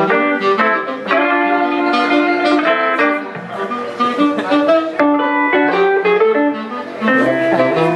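Live saxophone and guitar duet: the saxophone plays held melody notes over plucked guitar accompaniment.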